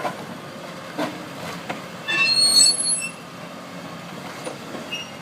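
Steel of an old bridge screeching under a demolition machine's pull. A few knocks come first, then a loud high metal squeal for about a second, then faint squeaks near the end.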